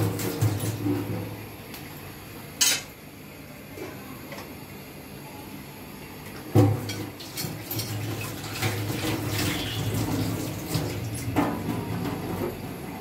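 Tap water running into a stainless-steel kitchen sink as a boti blade and then a plate are rinsed under it. There is a sharp knock about two and a half seconds in, and a loud clank about six and a half seconds in, after which the water runs steadily.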